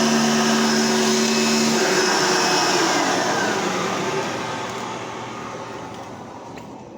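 10-amp Hoover Elite vacuum cleaner running, then switched off about two seconds in, its motor whine falling in pitch and fading as it spins down.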